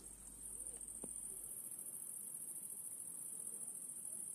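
Crickets chirring in a continuous high trill.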